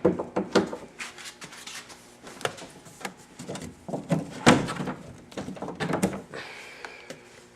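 Irregular clicks, knocks and clunks, as of things being handled.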